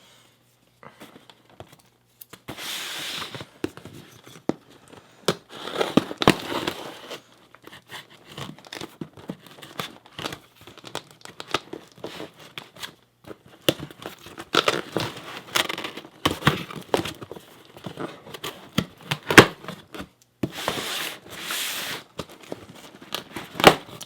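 Cardboard shipping boxes being handled and opened: several stretches of tearing, packing material crinkling, and many scattered knocks and taps.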